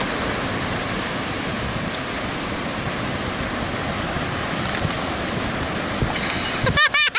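Steady rush of wind buffeting the microphone mixed with breaking ocean surf. A high-pitched voice cuts in near the end.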